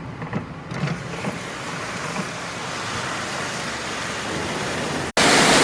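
Heavy rain, a steady hiss that grows gradually louder, then cuts off abruptly near the end and returns at once as a louder, steady rush.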